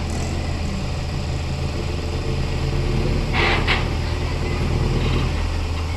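A heavy vehicle's engine running steadily with a low hum. Two short hisses come about halfway through.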